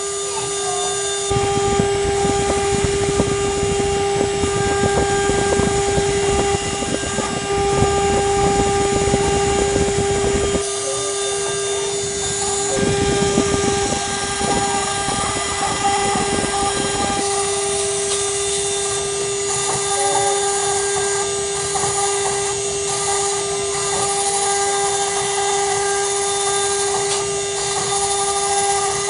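CNC spindle whining at a steady pitch as an engraving bit mills copper off a circuit board. A rough, rattling grinding of the cut rides over it, heavy for about the first ten seconds and again for a few seconds in the middle, lighter in between and afterwards.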